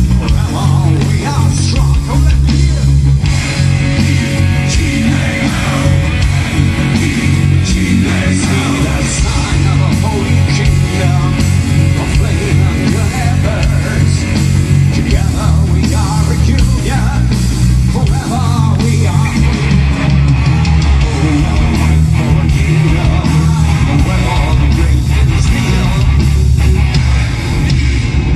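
A heavy metal band playing live through a PA: distorted electric guitars, bass guitar and drums, loud and steady.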